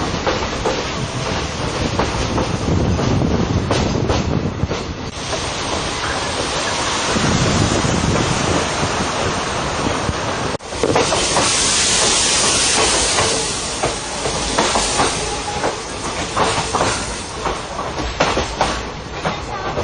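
Train running along the rails, wheels clattering with a steady rumble. About halfway through the sound cuts out for an instant, then a louder hissing rush sets in for a few seconds before easing back.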